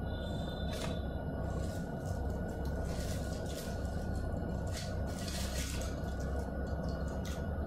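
Quiet room with a steady low hum and a faint steady tone, under a few soft clicks and rustles of small plastic trimmer accessories being handled, most of them between about three and six seconds in.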